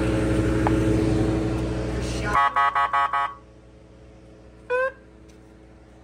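A standby generator's engine running steadily with a hum. About two and a half seconds in, its sound drops away sharply, and a quick run of about five short high beeps follows; a short high chirp comes near the fifth second.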